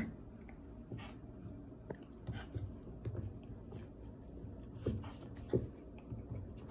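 A puppy's paws and claws tapping and scuffling on a hard plank floor: a handful of short, light knocks spread over several seconds.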